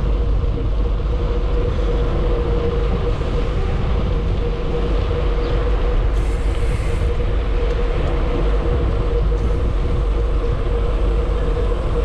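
Wind rushing over the microphone while riding, with a steady hum underneath.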